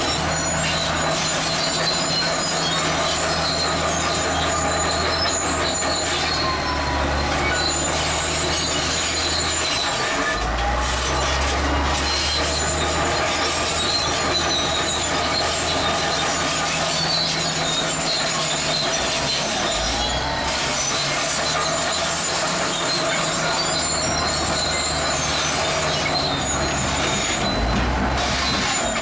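Zoomlion crawler bulldozer working gravel: a steady squeal from its steel tracks over the engine, whose low note shifts several times as it works.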